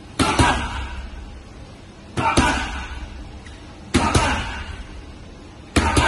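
Punches landing on focus mitts: a quick double smack about every two seconds, four pairs in all, each ringing out in a large gym hall.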